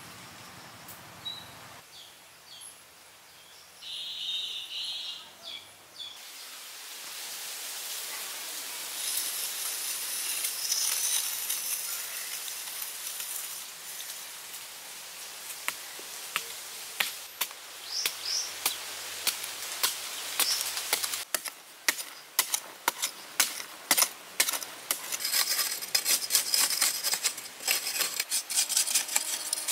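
Forest ambience with a steady high insect hiss, then a digging tool chopping and scraping into soil. The strikes begin about halfway through and come a couple a second near the end.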